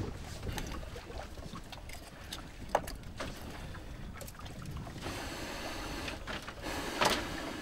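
Split firewood sticks knocking and clattering as they are stacked on a fire in a pan, a few sharp wooden clicks, the loudest about three seconds in and another near the end, over a low steady rumble of wind and boat ambience.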